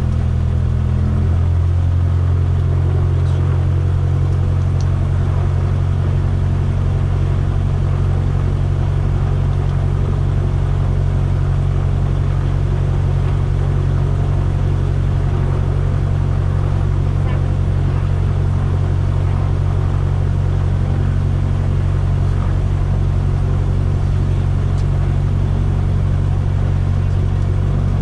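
Single-engine light aircraft's engine and propeller heard from inside the cabin, running steadily at low taxi power after landing: a constant low drone.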